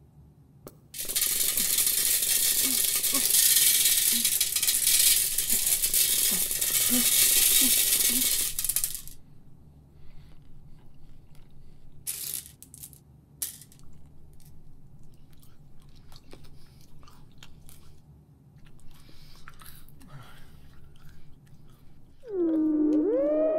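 A mass of small hard-coated candies pouring into a sink: a loud, dense rattling patter for about eight seconds. After it come a few sharp clatters and faint clicks as a hand stirs the pile. Near the end a gliding, theremin-like electronic tone comes in.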